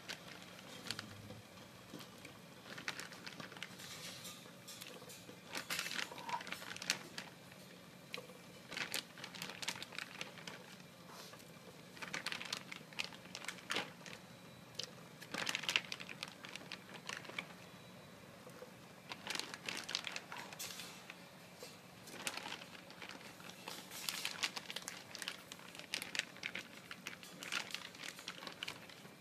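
Plastic bag crinkling in irregular bursts every few seconds while meatballs are taken from it and added to a pot of soup, over a faint steady hum.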